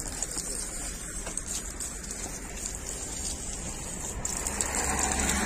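Water running from a wall tap and splashing onto cupped hands and the stone basin below, a steady pattering that gets louder near the end.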